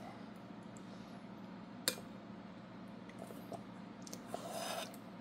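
Metal spoon clinking and scraping against a stainless steel bowl as a toddler scoops up soup and rice: one sharp clink about two seconds in, a few light taps, and a short scrape near the end.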